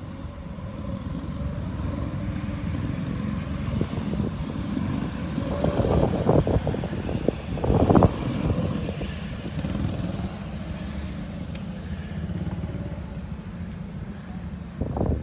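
Go-kart engines running as several karts circulate the track, a steady low buzz of engine noise. It swells loudest as a kart passes close about eight seconds in.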